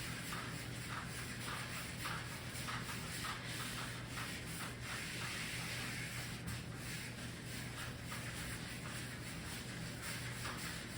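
Writing by hand: scratching, rubbing strokes of a pen on a writing surface, in many short irregular strokes over a steady low electrical hum.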